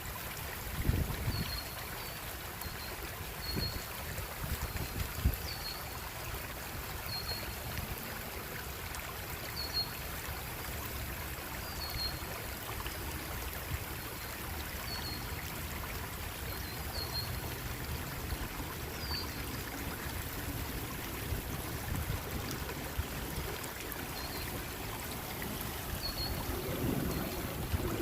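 Steady rush of a running stream, with a short high chirp repeating every second or two and a few low thumps in the first few seconds.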